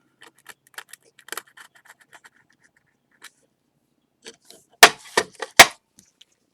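Hard small objects being handled on a work surface: faint scraping and light clicks, then a quick cluster of sharp clinks and knocks about five seconds in, like a tool or ceramic piece set down or tapped against the table.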